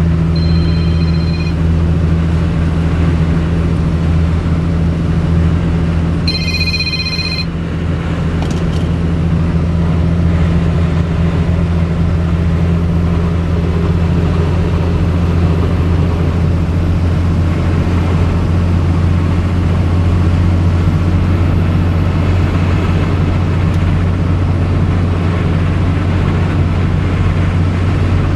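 The 5.9-litre Cummins diesel of a 2005 Ford F650 running at steady highway speed, about 57 mph at 1,700 rpm, a steady low drone with road noise, heard inside the cab. Twice, about five seconds apart, a brief high electronic ringing tone sounds over it.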